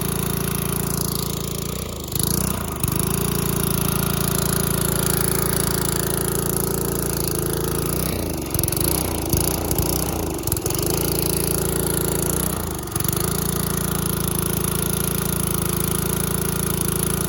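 Pressure washer's small engine running steadily. Its note dips and wavers briefly a few times: about two seconds in, for a couple of seconds around eight to ten seconds in, and again near thirteen seconds.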